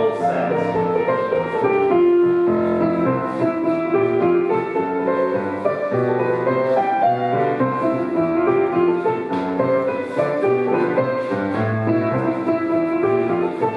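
Piano playing a jig for Scottish country dancing, a brisk tune that runs on without a break.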